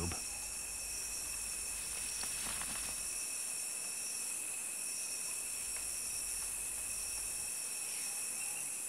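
Steady background chorus of insects: a continuous high trilling hiss, with faint wavering chirps coming in near the end.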